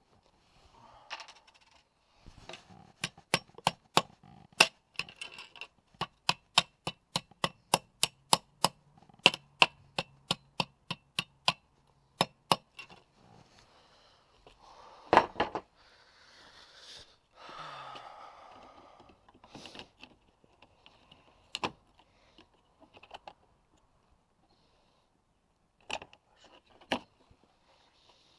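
Sharp metallic clicks, about two to three a second for several seconds, then a single louder snap and a few scattered clicks, as Dzus quick-release fastener clips are fitted to a plastic front bumper.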